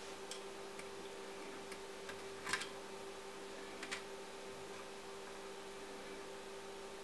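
Steady electrical hum from the bench equipment, with a few light clicks and taps as a measuring probe is set on points of a graphics card's circuit board; the loudest tap comes about two and a half seconds in, and a smaller pair about four seconds in.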